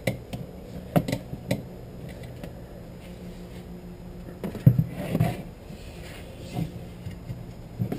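Scattered clicks and knocks from an Irwin clamp being handled and tightened hard to test its epoxied handle, with a denser cluster of knocks about halfway through, over a steady low hum.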